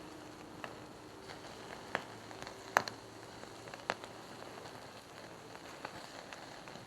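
Campfire in a fire pit stand crackling, with a few sharp pops, the loudest about two, three and four seconds in, over a steady hiss.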